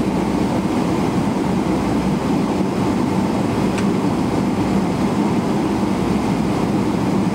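Steady low rumble inside the cabin of a Boeing 777-300ER taxiing at low speed, its GE90-115B engines running at taxi thrust.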